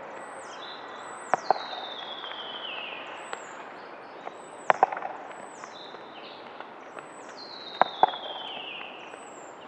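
Three tennis forehands about three seconds apart, each a pair of quick sharp knocks: a red-dot tennis ball bouncing on the clay, then struck by the racket. Behind them, birds call with repeated falling whistles.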